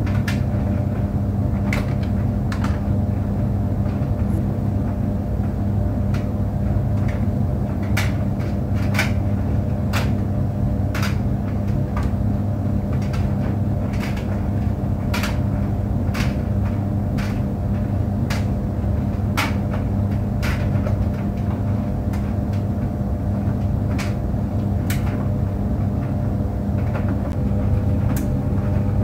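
Tumble clothes dryer running: a steady low hum with a few steady tones over it, and irregular light knocks about once a second from the tumbling drum.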